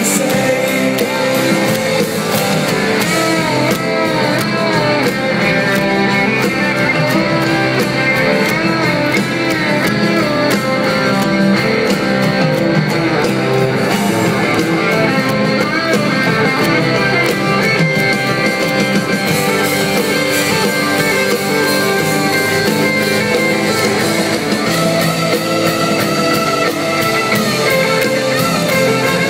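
Live rock band playing a song, with guitar prominent over the band.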